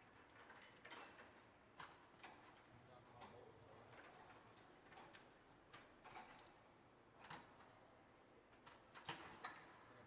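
Faint, irregular small metallic clicks and taps, roughly one a second, from hand tools and fittings being worked on the underside of an aircraft engine, over low shop room tone.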